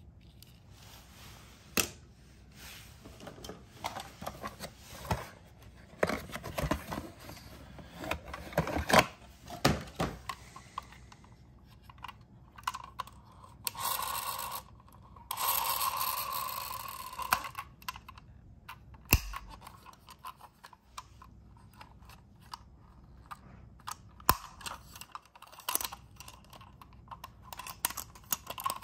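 Toy vehicles being handled: plastic parts of a transforming toy ambulance click and snap as it is folded, with many sharp taps and knocks. A little past halfway there are a few seconds of steady rubbing noise as a die-cast toy ambulance van is turned in the hands.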